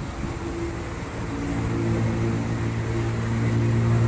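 An engine running with a steady low hum, growing louder from about a second in.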